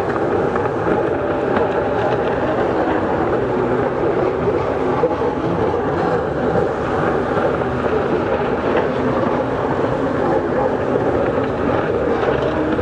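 Racing jet skis (personal watercraft) running at speed out on the water, their engines a steady drone with pitch that shifts slightly as they turn and accelerate.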